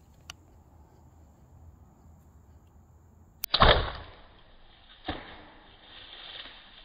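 A Hoyt bow shot at a deer: a sharp click about three and a half seconds in, then at once a loud thwack of the bowstring and arrow, which the later blood trail shows hit the deer. A second, fainter thump follows about a second and a half later. Crickets or other insects hum faintly before the shot.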